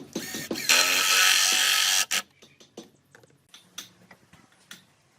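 Woodworking on timber: a short creak, then a tool rasping along the wood in one stroke of about a second. A sharp knock and a few light taps follow.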